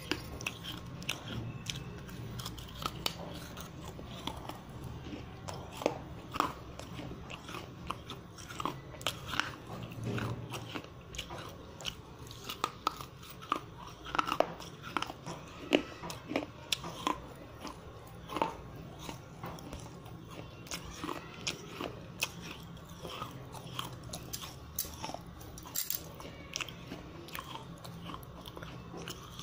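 Close-miked biting and chewing of a piece of wet terracotta clay pot: many irregular crisp crunches, unevenly spaced, over a low steady hum.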